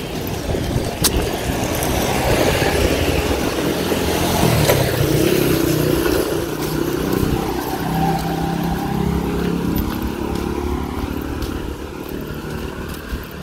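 A motor vehicle driving past on the road, its engine and tyre noise building to a peak about four to five seconds in, the engine pitch dropping as it passes, then easing off.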